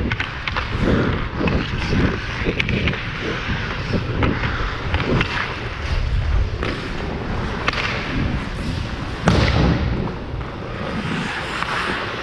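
Ice hockey skates scraping and carving on the ice, heard close from a helmet-mounted GoPro, with sharp clacks of stick on puck and repeated low thumps. One louder thump comes about three-quarters of the way through.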